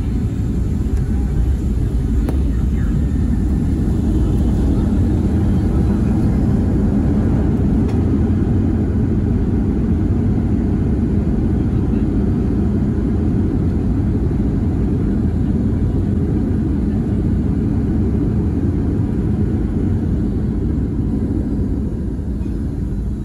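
Loud, steady rumble inside the cabin of a Boeing 757-300 rolling out on the runway after touchdown: engine noise and wheel rumble as the jet slows. It eases slightly near the end.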